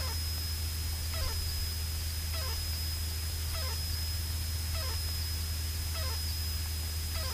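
Light aircraft in flight, heard inside the cabin: a steady low engine drone with a thin high whine. A short chirp that falls in pitch repeats about every 1.2 s, seven times in all.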